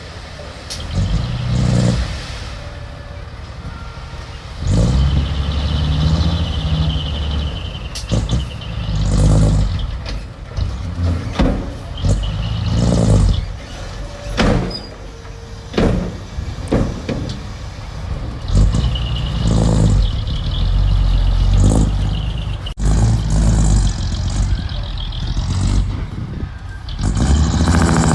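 Diesel earthmoving machinery working: a heavy engine revving up and easing off again and again under load, with repeated metallic clanks and knocks.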